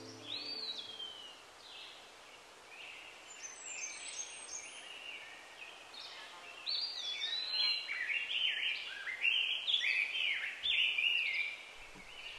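Birds chirping and calling over a faint outdoor background hiss: many short whistled notes, sparse at first and growing busier and louder about halfway through.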